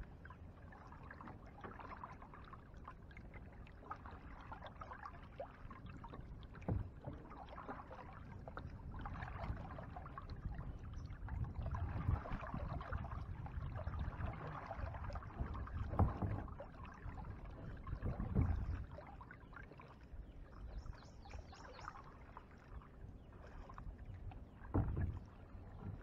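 Paddle strokes dipping and splashing in calm water beside a small boat's hull, with a few sharp knocks against the hull.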